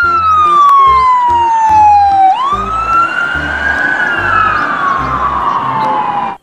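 Police car siren on a slow wail. The pitch falls slowly, sweeps back up a little over two seconds in, then falls again.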